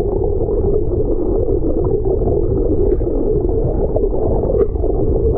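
Boat engine and churning water heard underwater: a muffled, steady drone with a hum, all of it dull and low with no highs.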